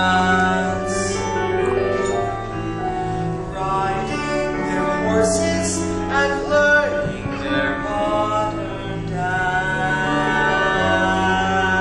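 Musical theatre song: a young man's voice singing a slow ballad over instrumental accompaniment, with long held notes.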